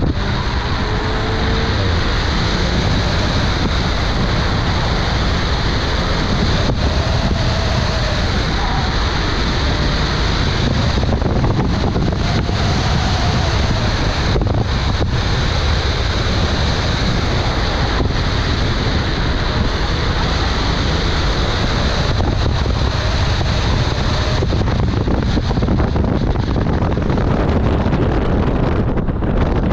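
Wind noise buffeting the microphone of a car-mounted camera, over the sound of the car's engine and tyres as it is driven at speed through an autocross course.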